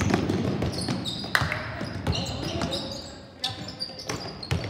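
A basketball dribbled on a hardwood gym floor: a run of bounces, with short high squeaks of sneakers on the court.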